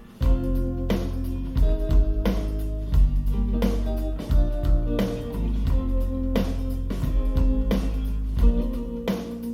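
A recorded song with guitar, bass and a steady drum beat, played back over a hi-fi amplifier and loudspeakers for a listening demo.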